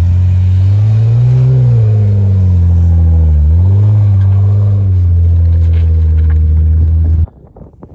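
Jeep Wrangler Rubicon engine revving up and down under load as it drives through deep slushy snow. The pitch climbs, dips about three and a half seconds in, rises again, and the sound cuts off abruptly near the end.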